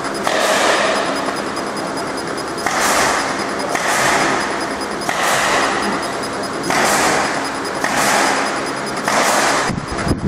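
CO2 laser marking machine engraving a wood sheet: a steady machine hiss and hum that swells into louder hissy surges about every second or so.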